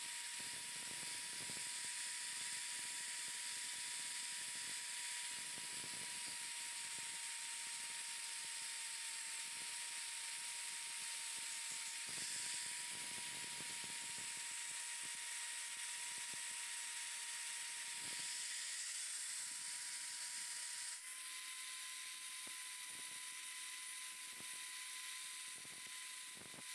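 Handheld electric angle grinder running steadily with an abrasive disc against bamboo, a constant high motor whine over a hiss. The pitch sags slightly now and then as the disc takes load, and steps a little higher about twenty seconds in.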